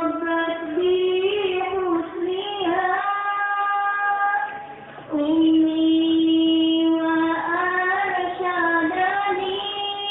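A high solo voice singing a sholawat, an Islamic devotional song, in slow melodic phrases with long held notes and a brief breath pause about five seconds in.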